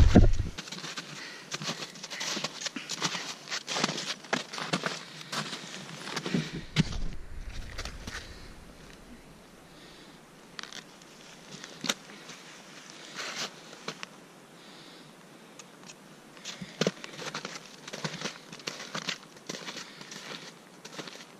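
Footsteps in MSR Lightning Ascent snowshoes crunching in snow: an irregular run of crisp crunches, louder in the first seven seconds and fainter after. A brief low rumble comes about seven seconds in.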